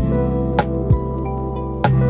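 Instrumental background music with held notes over low sustained tones, and a few percussive hits.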